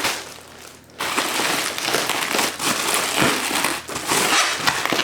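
Plastic bubble wrap crinkling and rustling as it is handled and unwrapped, with many small crackles; it picks up about a second in and goes on steadily.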